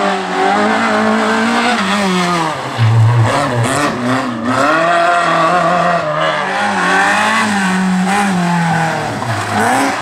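Rally car engine at full racing revs through a tight bend. The engine note drops as the car brakes and shifts down, with a heavy low blip about three seconds in, then climbs and holds as it accelerates away. Near the end the revs drop again as the next rally car comes into the bend.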